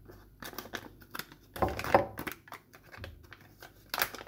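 Sachet of mask powder crinkling as it is handled and torn open by hand: a string of irregular crackles and rips, loudest about two seconds in and again near the end.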